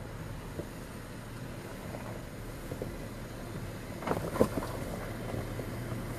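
Jeep Wrangler JKU engine running low and steady as the Jeep crawls down a rock ledge, with a few short knocks and scrapes of tires and underbody on rock about four seconds in, one sharp knock the loudest.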